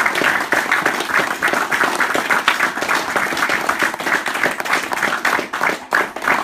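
A group of people applauding by hand-clapping, the clapping growing sparser and more separate toward the end.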